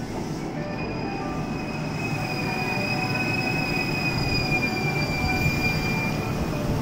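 Kintetsu electric train pulling in and braking to a stop, with a running rumble and a high, steady squeal that sinks slightly in pitch and fades out near the end as the train halts.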